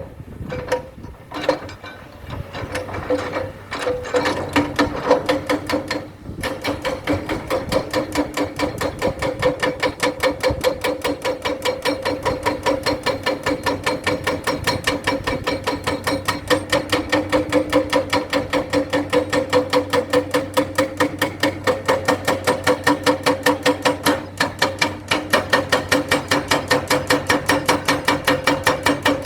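A machine knocking fast and evenly, several times a second, over a steady hum. It is irregular for the first few seconds and settles into a steady rhythm from about six seconds in.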